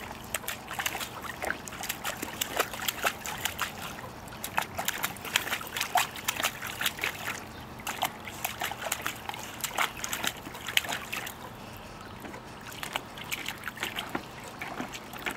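Puppy splashing and pawing in a plastic kiddie pool: short, irregular splashes and sloshing water as she paws and dips her muzzle under to hunt for a toy. The splashing thins out for a couple of seconds past the middle, then picks up again.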